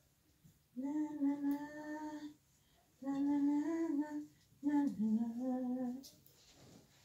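A woman humming a tune in three long held notes with short breaks between them, the last note dipping in pitch at its start.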